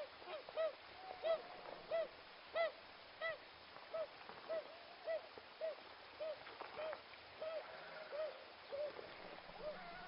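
A bird calling over and over: a steady run of short, arched notes, roughly two a second.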